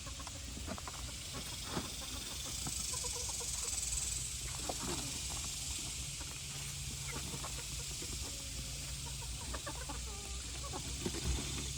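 Chickens clucking in short, scattered calls over a steady background hiss.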